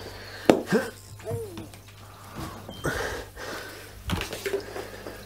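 Handling and movement noise: a few knocks and rustles as a hand-held camera is carried past furniture. About a second in there are two short murmured vocal sounds.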